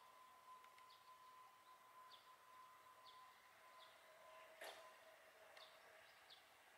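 Near silence with faint outdoor ambience: a small bird repeats a short high chirp about once a second over a faint steady tone, and there is a single sharp click about four and a half seconds in.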